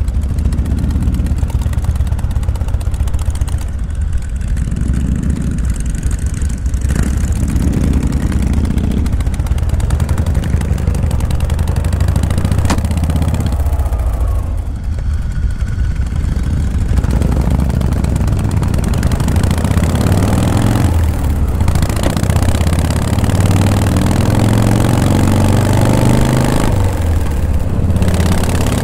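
Vintage Harley-Davidson V-twin motorcycle engine pulling away and riding, its low rumble swelling and rising several times as it accelerates through the gears, with wind noise on the rider's camera microphone at road speed.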